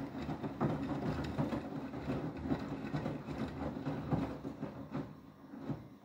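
Beko WTK104121W front-loading washing machine in its main wash, the drum turning a wet load of towels: water sloshing and the load thudding over and over, dying away about five seconds in as the drum stops.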